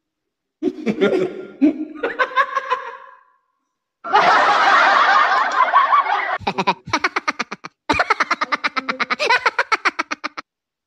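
People laughing and giggling in several bursts broken by sudden silent gaps, ending in a fast run of short ha-ha pulses that stops abruptly.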